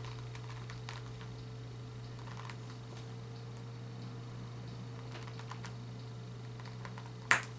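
Faint clicks of a plastic action figure being handled as its head is worked onto the ball-joint neck, with one sharper click near the end, over a steady low hum.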